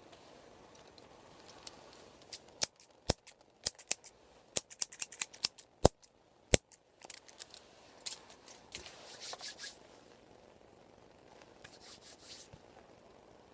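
Hair-cutting scissors snipping close to the microphone: a quick, uneven run of sharp clicks over about five seconds, followed by softer rustling strokes.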